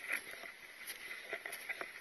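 A hiker's footsteps crunching in snow, with irregular short crunches.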